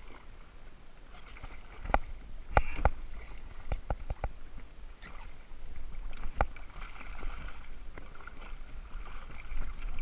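Sharp knocks and clicks as a bluefish and a wire umbrella rig are handled against a plastic kayak. Several come close together about two to four seconds in, and one more comes near the middle. A steady low rumble runs underneath.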